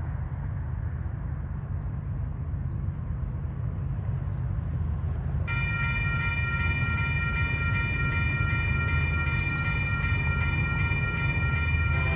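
Low, steady rumble of an approaching Union Pacific freight's diesel locomotives, slowly growing louder. About five and a half seconds in, a locomotive air horn chord starts abruptly and is held steadily.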